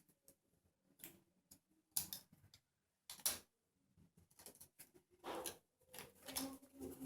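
Small clicks and taps of plastic and metal parts being handled while a grounded wall socket is put together: a few separate sharp clicks, then a quicker run of small clicks.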